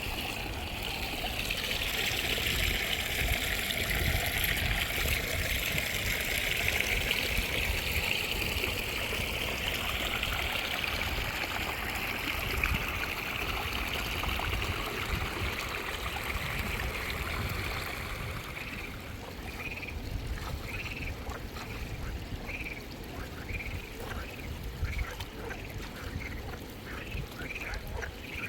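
Water trickling and running steadily. About two-thirds of the way through, ducks start quacking in a run of short, repeated calls over the water.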